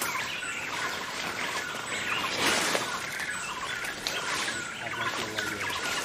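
Many birds chirping and calling at once, a dense chatter of short overlapping chirps, with a brief rush of noise about two and a half seconds in.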